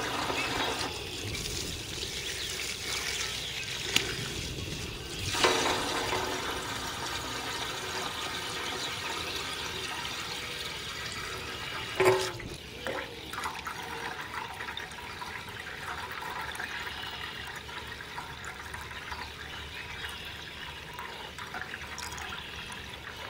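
Water from a garden hose running into the filler neck of a Honda CB650's steel fuel tank, a steady rushing, gurgling fill, with a couple of brief knocks along the way.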